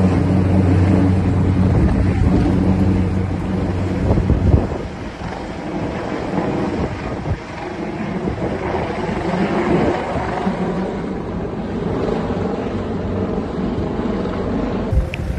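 Engine noise from emergency vehicles, with wind buffeting the microphone. A steady low hum for the first few seconds gives way to a rougher rumble.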